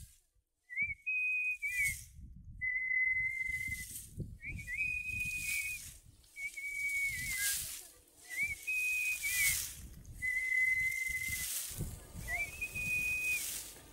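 A person whistling short, nearly level notes over and over while winnowing threshed grain with a wooden fork, each note about a second long, and between them the hiss of grain and chaff showering down after each toss.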